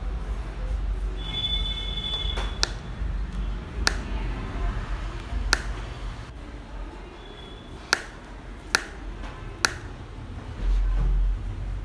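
Six sharp cracks at uneven intervals, spread over several seconds: joints popping under a chiropractic adjustment.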